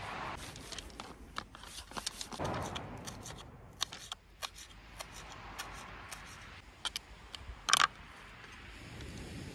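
Knife chopping fresh green herbs on a chopping board: a run of sharp, irregular taps, with one louder knock near the end.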